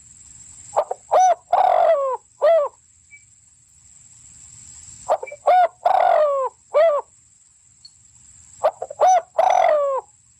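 A fowl calling in three bursts about four seconds apart. Each burst is a quick run of short notes that curve down in pitch, with one longer, harsher note among them. A faint steady high-pitched whine runs underneath.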